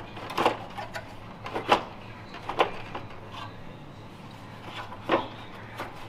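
Several irregular knocks and clunks as a car's cooling fan assembly is fitted back into the engine bay.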